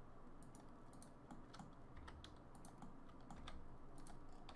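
Faint, irregular tapping and clicking of a computer keyboard and mouse.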